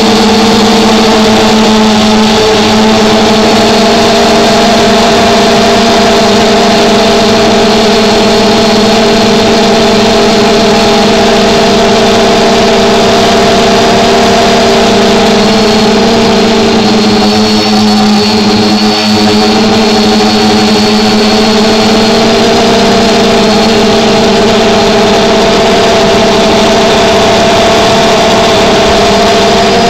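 Small drone's electric motors and propellers running steadily in flight, heard up close from a camera mounted on the drone: a loud, even hum made of several steady tones that waver slightly in pitch a little past halfway.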